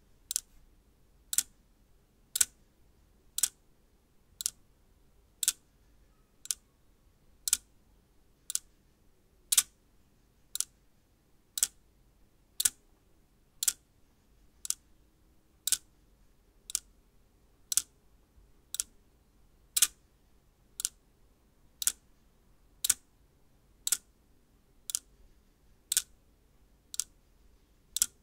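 Discs of a 3x3 electromagnetic flip-disc display snapping over one at a time: a sharp click about once a second, some clicks louder than others.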